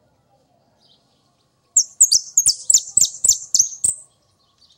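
Caged jilguero riojano (a yellow finch) singing one quick, loud phrase of about eight sharp, high notes, starting nearly two seconds in and lasting about two seconds.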